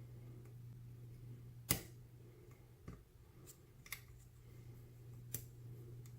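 Faint, scattered clicks of a hook pick and tension wrench working the pins of an Abus 80/45 padlock fitted with security pins, about five clicks in all, the loudest a couple of seconds in. A steady low hum runs underneath.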